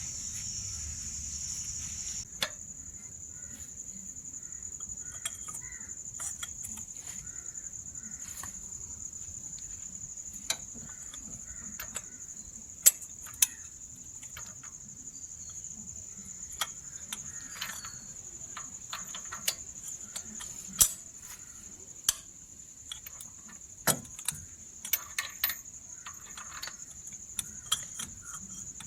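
Scattered metallic clicks, clinks and knocks of hand tools as an engine cover is taken off to reach the spark plugs, over the steady high chirring of crickets.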